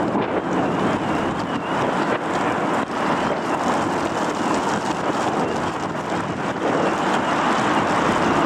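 Strong wind gusting over the microphone, with a car alarm's siren warbling evenly up and down in the background.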